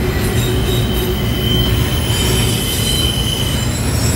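Freight train of autorack cars rolling past close by with a steady low rumble. A high-pitched wheel squeal sets in about half a second in and dies away shortly before the end.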